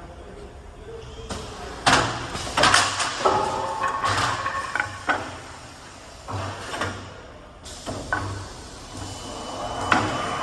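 CNC wood lathe machinery knocking and clunking in a quick irregular series, with brief metallic ringing tones, then a motor whine that rises in pitch near the end as it speeds up.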